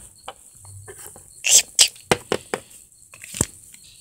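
Handling noise of small plastic Littlest Pet Shop toy figures being moved about by hand: a scattered series of taps and short rustles, loudest about a second and a half in, with a last tap near the end.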